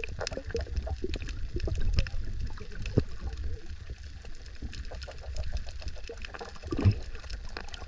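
Underwater sound from a submerged camera: a steady low rumble of moving water with scattered clicks and crackles throughout, and a louder bubbling gurgle about seven seconds in.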